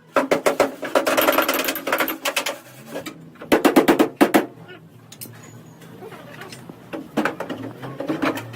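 Rapid repeated metal strikes, about nine a second, in two bursts with a ringing tone under them, then a few scattered knocks.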